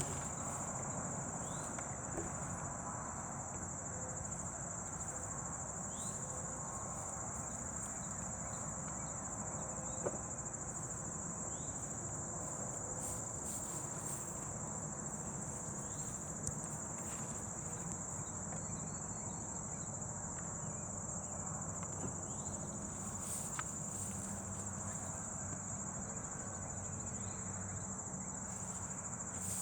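A steady high-pitched chorus of crickets or katydids, with a low steady hum beneath it from honey bees flying around a swarm and a few faint clicks.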